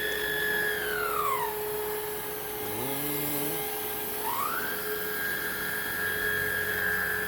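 Hoover React cordless vacuum's motor whining. It winds down in pitch about a second in and ramps back up about four and a half seconds in, as the vacuum's floor-sensing automatically switches its power mode on the carpet.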